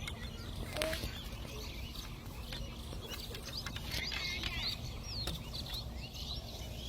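Small birds chirping, with a flurry of short high calls in the middle, over a steady low rumble.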